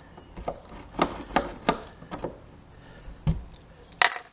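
A series of sharp clicks and knocks from a key being worked in a boat storage locker's lock and latch, with the loudest knock near the end as the hatch comes free.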